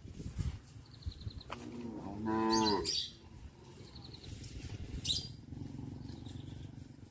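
A cow mooing once: a single drawn-out call starting about one and a half seconds in and lasting about a second and a half, dropping slightly in pitch as it ends.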